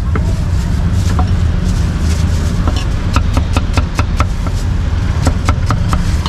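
Meat cleaver chopping roast meat on a wooden chopping block: a few single chops, then two quick runs of about five or six strokes each in the second half. A steady low rumble runs underneath.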